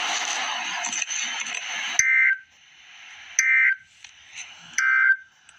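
About two seconds of static-like hiss, then the Emergency Alert System end-of-message signal: three short, harsh two-tone digital data bursts about 1.4 s apart, marking the end of the alert.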